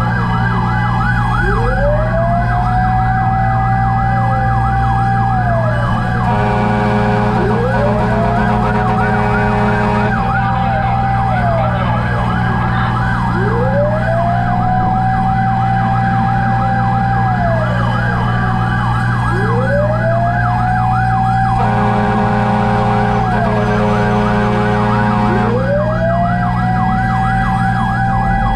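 Fire truck sirens sounding together: a slow wail rising, holding and falling about every six seconds over a fast yelp, with a steady low engine drone underneath. A steady horn blast sounds twice, for about four seconds each, about six seconds in and again near the end.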